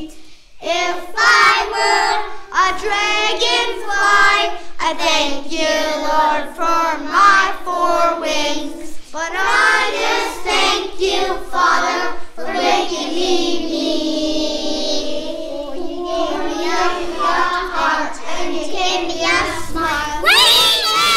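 A group of young children singing a song together in sustained phrases. About twenty seconds in, the singing gives way to a loud burst of children shouting together.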